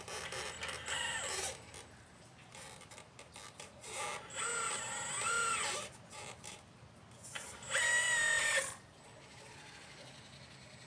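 Motors of a 1/12 scale RC Liebherr 954 excavator whining in three separate bursts as the machine moves, the pitch rising and falling within each burst.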